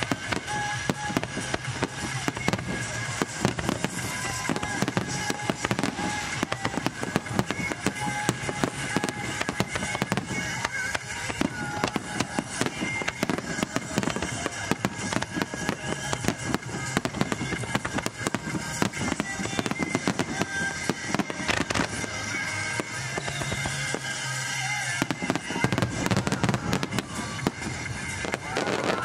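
Aerial fireworks shells bursting in a dense, rapid barrage, many sharp reports a second without a break, with music playing underneath.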